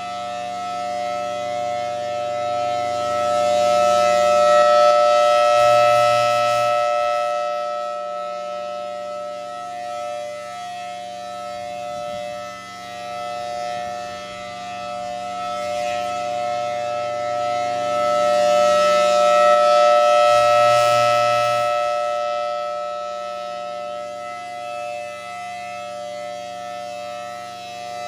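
Federal Signal Thunderbolt 1000BTSB outdoor warning siren sounding a full alert, a steady unwavering tone. It swells loud and fades back twice, about fifteen seconds apart, as the rotating siren head sweeps past and away.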